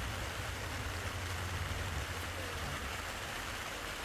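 Steady rain falling, an even hiss, with a low rumble underneath that fades about two and a half seconds in.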